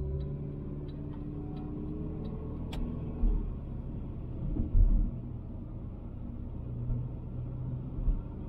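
A Citroën Xantia being driven, heard from inside the cabin: the engine and tyres make a steady low rumble. A few dull thumps come through, the loudest about five seconds in. A light, regular ticking is heard over the first three seconds.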